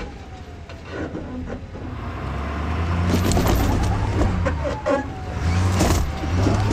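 A truck's engine running and pulling, growing louder about two seconds in, with scattered knocks and clunks.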